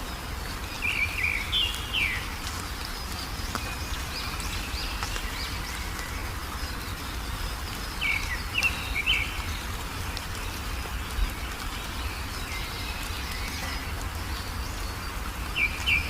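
Wild songbirds chirping in short quick phrases, three bursts a few seconds apart, over a steady hiss of outdoor background noise.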